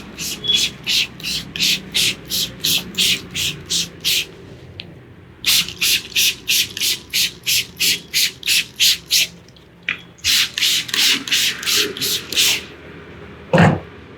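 Head massage strokes rubbing over a client's scalp and hair, fast and rhythmic at about three strokes a second, in three runs with two short pauses. A single louder thump comes near the end.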